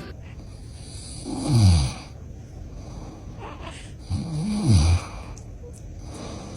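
A man snoring loudly twice, about three seconds apart, each snore under a second long and sliding down in pitch.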